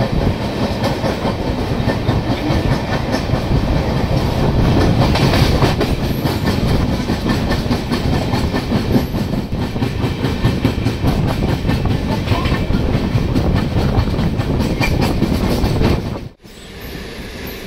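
Indian Railways express train running along the track, wheels clattering steadily over the rail joints with a dense rattle of clicks. A little before the end the sound drops off abruptly and a much quieter run continues.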